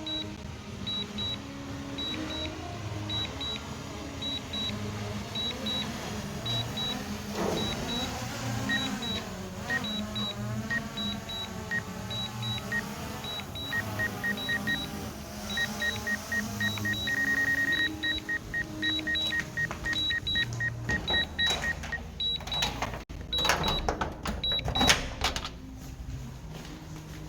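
DJI Mini 2 drone flight-warning beeps: pairs of high beeps repeat at an even pace. A lower beep quickens until it holds as a steady tone about two-thirds of the way in, then pulses again. A wavering whine sits under the beeps in the middle, and several sharp knocks come near the end.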